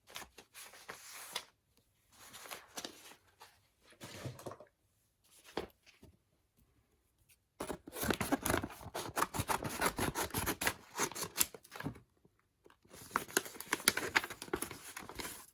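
Plastic packaging crinkling and rustling in bursts as a photocard is unwrapped. Short rustles come first, then longer, louder crinkling from about halfway through.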